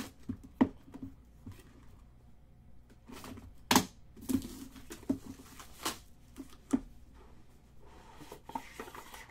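Cellophane shrink-wrap being torn and crinkled off a sealed trading-card box, with sharp crackles and a few taps from handling the cardboard box. The loudest crackles come nearly four seconds in and again about six seconds in.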